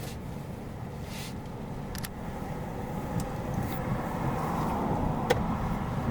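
Steady low rumble of a car's engine and road noise heard inside the cabin, with a couple of small clicks.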